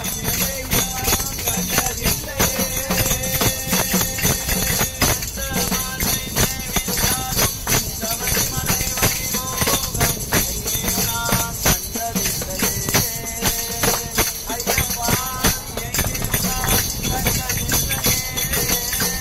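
Group devotional bhajan to Lord Ayyappa: voices singing over quick rhythmic hand-clapping and jingling percussion, with a steady low rumble underneath.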